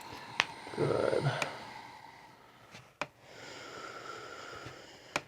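A person's slow, gentle breathing close to a sensitive microphone, with a few sharp, light clicks; the sharpest comes about half a second in.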